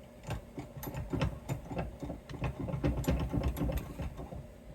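Irregular knocks, clicks and clatter as a guitar is handled and set into a bench vise, with scraping and bumping of the vise and surrounding gear.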